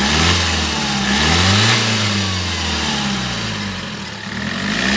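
Turbocharged car engine being revved: it climbs twice in the first two seconds, eases back down toward idle, and climbs again near the end. No abnormal turbo noise: the wastegate actuator works again after its corroded vacuum-solenoid connector was fixed, and the earlier noise under acceleration is gone.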